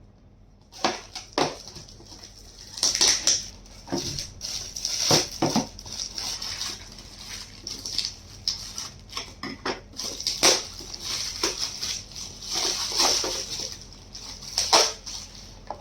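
Gift wrapping crinkling and tearing in irregular bursts as a present is unwrapped by hand.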